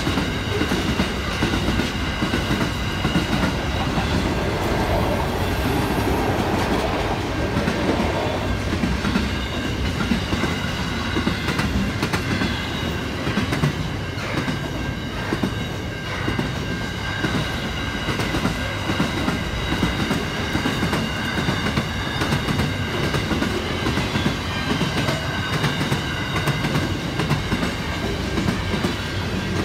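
Freight train's container wagons rolling steadily past at a level crossing, wheels clattering over the rail joints with a continuous rumble.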